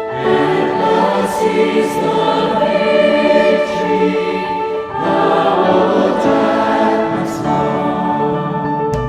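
A choir singing a hymn in held notes, with a short break between phrases about five seconds in.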